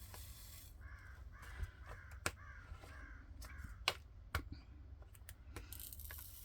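A bird's harsh calls, about five in a row in quick succession, then stopping. A few sharp clicks come through at the same time.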